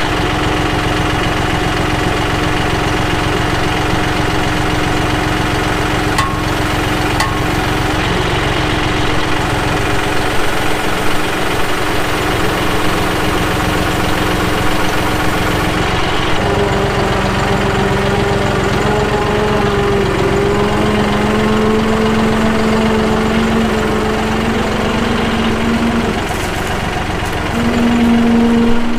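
Tractor engine running steadily; about halfway through its pitch rises and wavers as the engine speeds up.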